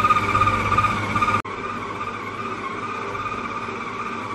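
Kenwood Cooking Chef stand mixer's motor running steadily as its dough hook kneads bread dough, a steady whine over a low hum. About a second and a half in the sound cuts off sharply to a quieter, similar whine.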